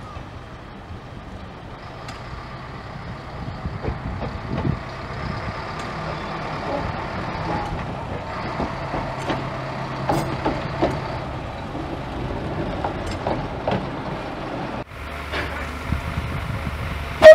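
Small narrow-gauge diesel shunting locomotive running and moving slowly through a yard: a steady low engine drone with scattered metallic clanks and knocks. About 15 s in, the sound changes to a quieter low steady hum, and a loud whistle note starts right at the end.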